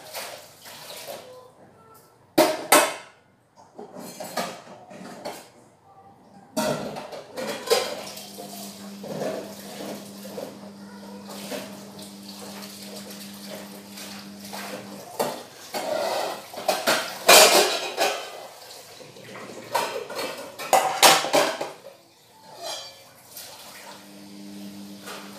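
Dishes being hand-washed at a kitchen sink: pots, plates and cutlery clattering against one another and the sink, with water from the tap. Sharp clanks come throughout, the loudest about two seconds in and again around seventeen and twenty-one seconds.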